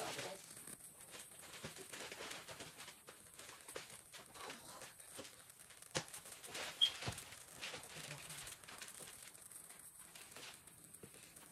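Gift-wrapping paper rustling and crinkling as a present is unwrapped by hand, with irregular crackles and a couple of sharper tears about six and seven seconds in.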